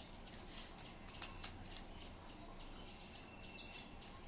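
Faint, steady background chirping of a small animal, short high chirps at about three a second, with a sharp click about a second in.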